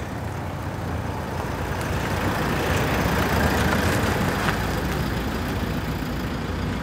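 Toyota estate car driving slowly and pulling up: a low engine rumble with tyre hiss on wet tarmac, swelling as it comes closer to its loudest midway, then easing off a little.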